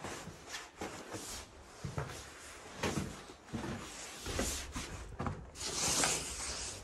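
Footsteps and knocks from a wooden door being pushed open in an empty house. From about four seconds in, a low rumble and rushing hiss join them, like wind on the microphone once outdoors.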